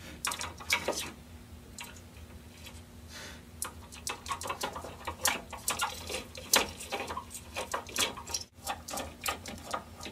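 A screwdriver turning out the screws on a rear-projection TV's CRT lens assembly: rapid, irregular small clicks and ticks that come thicker after a few seconds.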